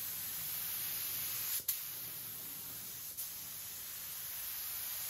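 Gravity-feed spray gun hissing steadily as clear coat is sprayed onto a car bonnet, the air flow breaking briefly twice.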